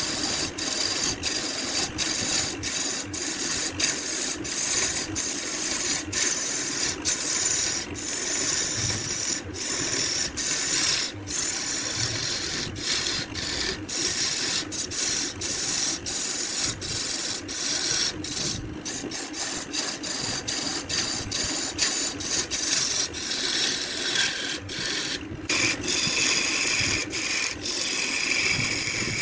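A tool scraping and rasping steadily against wood, a continuous gritty noise broken by brief gaps about twice a second.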